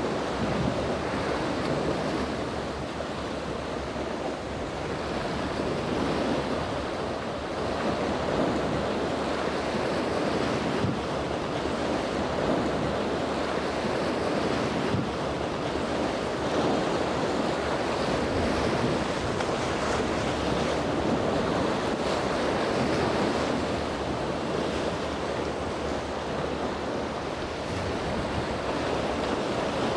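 Rough sea surf and wind: a steady rushing wash of breaking waves, with wind buffeting the microphone.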